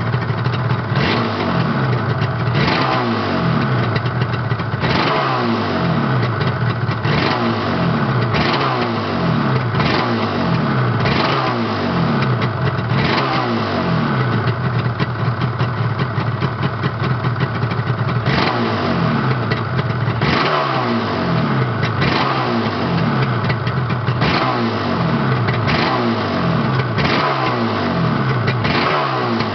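Yamaha RD350 YPVS two-stroke parallel twin, still cold from its start, blipped over and over: each quick rev drops back toward idle with a falling pitch, roughly every one to two seconds. There is a steadier stretch at idle near the middle.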